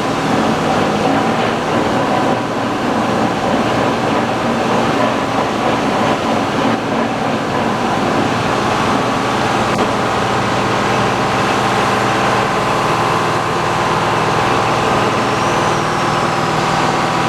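Frick sawmill running steadily under power, a loud even mechanical drone with several steady tones, as its carriage travels along the track.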